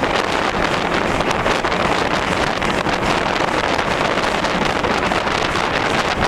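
Ivatt steam locomotive running at speed, a steady rush of running noise with heavy wind buffeting the microphone.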